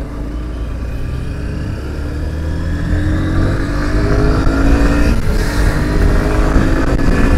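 Motorcycle engine heard from the rider's seat, accelerating as it rises in pitch, dipping briefly about five seconds in and then climbing again, over a steady low wind rumble.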